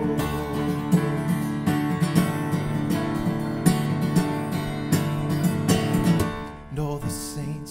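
Acoustic guitar strummed in a steady rhythm of chords, an instrumental break with no singing; the strumming drops quieter for the last second or so.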